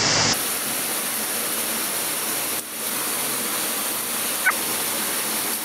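Steady rush of a small waterfall pouring down into a rocky mountain torrent, with one brief high chirp about four and a half seconds in.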